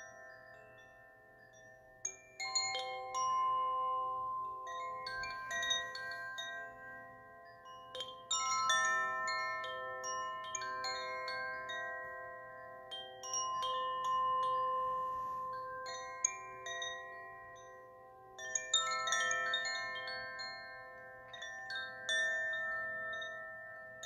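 A set of three cylindrical wooden-cased wind chimes tinkling in clusters of light strikes, each cluster leaving several pitched notes ringing and slowly fading before the next.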